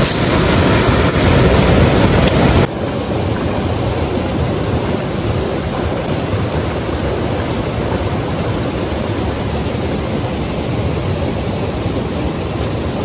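Mountain river rushing over and between boulders: a loud, steady rush of white water. It drops abruptly to a somewhat lower level about two and a half seconds in.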